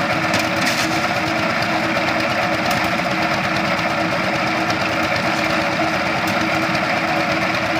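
A motor-driven machine running steadily, with a rapid rattle over a constant drone.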